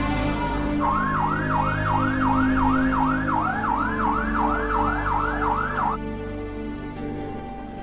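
Police car siren in a fast repeating yelp, about two and a half rising-and-falling sweeps a second, cutting off suddenly about six seconds in, over background music with sustained tones.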